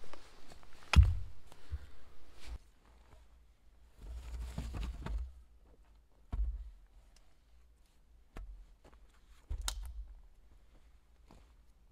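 An axe striking wood once sharply about a second in, then scattered softer knocks, rustles and footsteps as wooden poles are handled on the forest floor.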